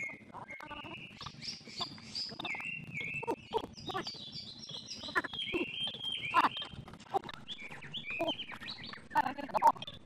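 A bird calling in runs of short, high chirping notes that step down in pitch, over scattered sharp clicks; the loudest clicks come about six and a half and nine and a half seconds in.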